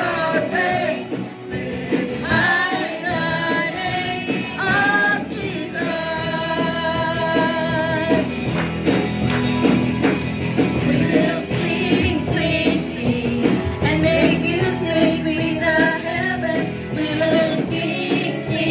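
Background music: a song with a sung lead melody over a band, the singer holding some long notes.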